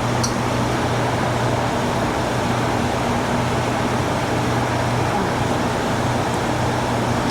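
Steady machine noise with a low, even hum.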